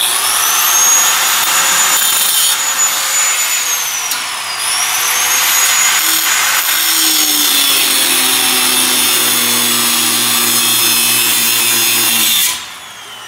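Angle grinder with a thin cut-off disc starting up and cutting into the sheet steel of a car's strut tower. It makes a high whine that sags in pitch about four seconds in as the disc bites, then climbs back. It cuts off suddenly near the end.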